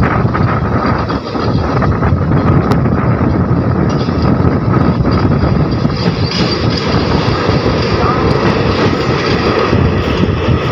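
Passenger train coach running along the track, heard from the coach's open side: a steady, loud rumble of wheels on rails.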